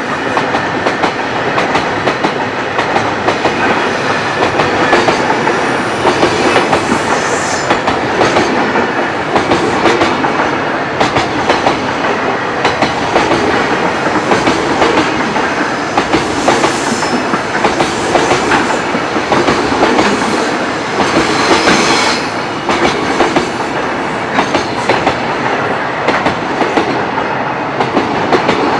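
Long freight train rolling past at close range, its wagon wheels clacking over the rail joints in a steady, continuous run of sharp clicks over the rumble of the cars.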